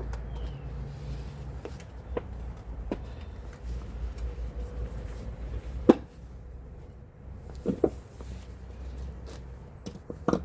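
Scattered sharp clicks and knocks of tools and parts being handled, over a low rumble. The loudest knock comes about six seconds in, and a quick double knock follows near the end.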